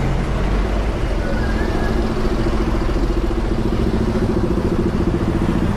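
Street traffic heard from a moving electric scooter: wind rumbling on the microphone and road noise, with a steady low hum.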